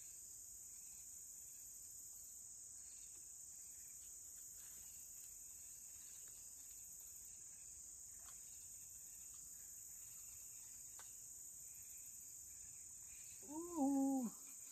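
Steady high-pitched chorus of insects, crickets, on the riverbank. Near the end a short voiced sound, rising then falling in pitch, cuts through it once.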